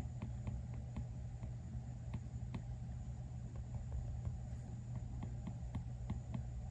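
Apple Pencil tip tapping and stroking on an iPad Pro's glass screen while sketching: light, irregular plastic-on-glass ticks, about three a second, over a steady low hum.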